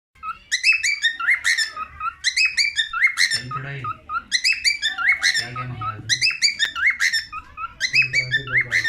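Pet parrot calling in repeated phrases of high, sharply sweeping notes, a phrase about every one and a half seconds.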